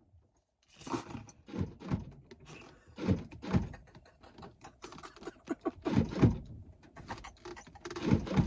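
Irregular knocks and heavy thumps on a locked car's door and body, heard from inside the cabin, as someone outside tries the door to get in. They start about a second in and come more densely in the second half.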